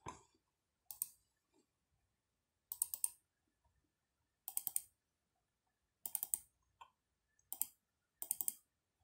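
Computer mouse button clicking in quick double-clicks, about six groups a second or two apart, as folders are opened one after another in a file browser.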